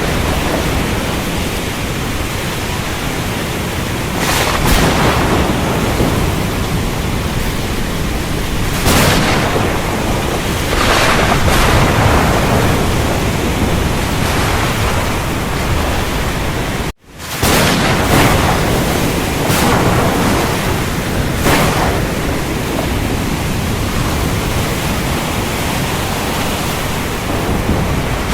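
Thunderstorm ambience: steady heavy rain hiss with several louder swells of thunder. The sound cuts out for an instant about two-thirds of the way through and comes straight back.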